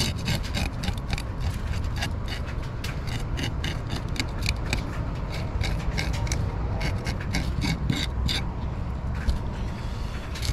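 Hand-held serrated metal fish scaler scraping the scales off a small mangrove snapper in quick, repeated strokes, several a second, with a short lull about two-thirds of the way through.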